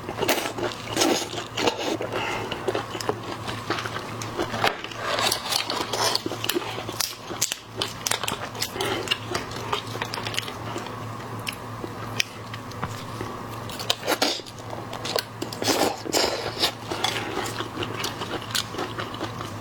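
Close-miked eating of seafood: utensils clicking against dishes amid biting and chewing sounds, over a steady low hum.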